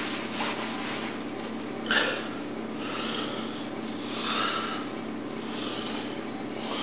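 A person breathing and sniffing close to the microphone, with one short click about two seconds in, over a steady low hum.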